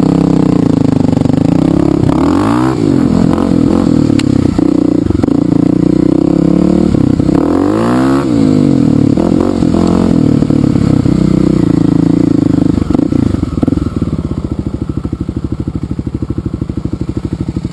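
Dirt bike engine heard from on board while riding a gravel trail, revving up and down twice, then dropping to a slow, even low-rev putter for the last few seconds.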